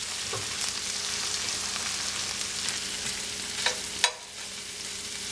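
Sausage slices, shrimp and diced peppers sizzling steadily in a cast iron skillet over a gas flame. A metal spoon clicks against the pan twice, a little under four seconds in.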